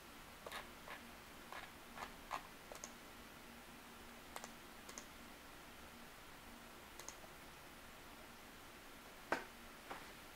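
Passing freight train of grain hopper cars: scattered sharp clicks and clanks from the wheels and cars over a quiet background, irregularly spaced, a cluster in the first three seconds and the loudest click near the end.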